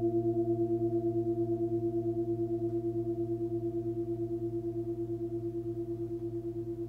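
Nepalese singing bowl, 24 cm and pitched at about 111 Hz (A), ringing on with several overtones over its low fundamental and slowly fading. Its tone wobbles evenly, about five pulses a second.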